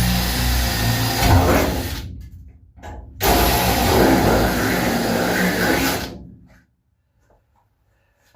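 Electric drill fitted with a wire brush attachment, scouring the van's metal floor back to bare metal around rust holes. It runs for about two seconds and winds down, starts again a second later, runs about three seconds, then spins down and stops.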